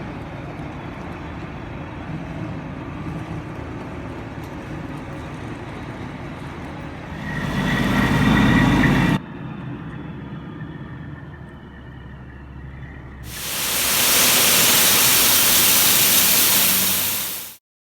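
Heavy farm machinery engines running, heard in several segments joined by abrupt cuts. A louder rumble with a whine comes about seven seconds in and stops sharply about two seconds later. A loud, even hiss takes over in the last few seconds, then it cuts to silence.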